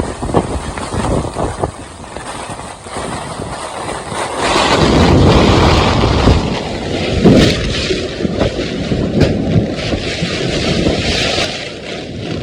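Strong gusting wind buffeting the microphone over heavy rain, with a louder surge of wind about four to six seconds in.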